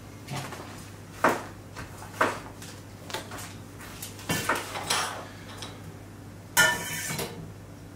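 Small black console panels being handled and set down on a wooden tabletop: a scattering of light clicks and taps, with a denser burst of clicking and handling noise near the end.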